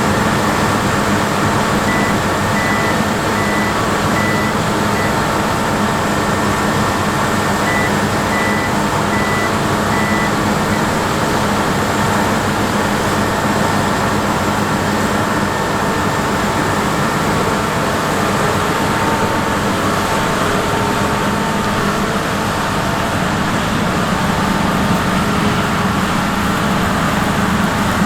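Heavy farm machinery running steadily during grain maize harvest, the drone of a combine harvester at work. Two short runs of high warning beeps, about one and a half a second, sound a couple of seconds in and again about eight seconds in.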